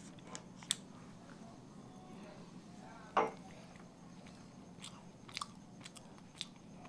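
A person chewing soft pastry close to the microphone: faint wet mouth clicks and smacks, with one louder smack about three seconds in.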